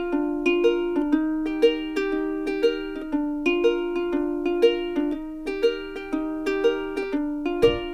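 Background music: a light tune of plucked-string notes in a steady, even rhythm.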